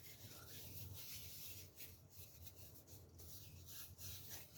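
Faint, irregular rubbing strokes on a red cedar spoon as vegetable oil is wiped into the wood, over a low steady hum.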